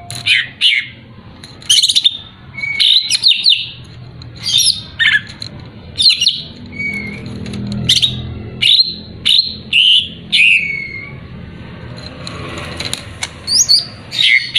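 Cucak ijo (green leafbird) singing in short, sharp whistled phrases with rapid up-and-down sweeps, about one a second, with a brief pause about three-quarters of the way through. It is a lure song, played to rouse a rival bird into singing.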